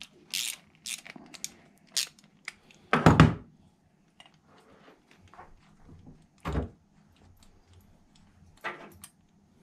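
Hand tools and a small carburettor handled on a wooden workbench while its float bowl nut is undone with a socket ratchet. Light metallic clicks and taps, a heavy thud about three seconds in, another about six and a half seconds in, and a knock near the end.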